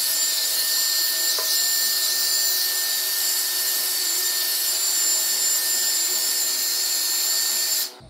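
Croma hand-held hair dryer running, blowing a steady rush of air with a thin steady whine; it stops abruptly near the end.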